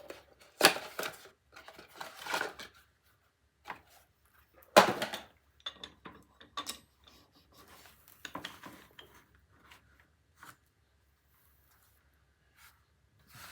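Metal mower drivetrain parts clinking and clanking as they are handled and set down on a workbench. There is a sharp clank just under a second in, the loudest clank about five seconds in, and scattered lighter knocks up to about ten seconds.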